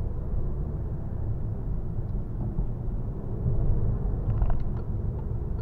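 Cabin noise of a 2019 Citroën Berlingo on the move: its 1.5-litre BlueHDi 130 four-cylinder diesel and the tyres on the road make a steady low rumble. A few faint clicks come about four and a half seconds in.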